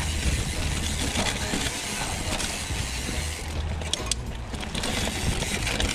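Hardtail mountain bike riding fast down a dirt trail: a steady rush of wind on the microphone and tyres running over dirt, with a few sharp rattles from the bike about three and a half to four seconds in.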